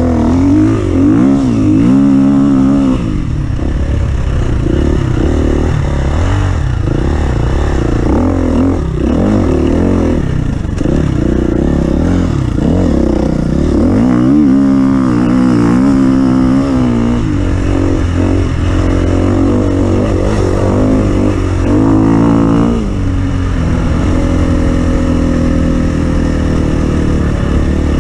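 Offroad vehicle's engine being driven hard, revving up and down again and again, then holding a steadier, slowly falling note near the end.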